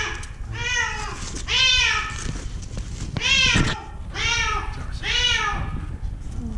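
Black-and-white cat meowing over and over, about six meows roughly a second apart, each rising then falling in pitch: the calls of a cat trapped at the bottom of a deep light well.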